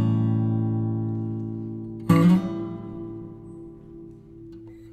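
Background music of a strummed guitar: one chord struck just before the start rings and fades, another is struck about two seconds in and left to die away.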